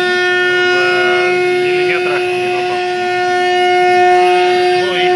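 DIY CNC router running a job: a steady, high-pitched whine that holds one pitch. Around two seconds in and again near the end, shorter tones waver up and down over it.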